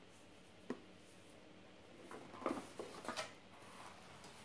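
Faint handling of a cardboard gift box as it is lowered and opened: a single click just under a second in, then a few soft knocks and rustles between two and three and a half seconds in.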